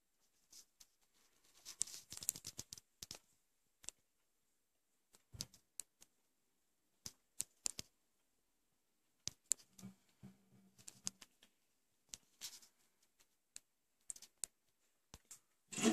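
Small die-cast toy cars being handled and set down on a tabletop: scattered light clicks and taps, with a duller knock about five seconds in.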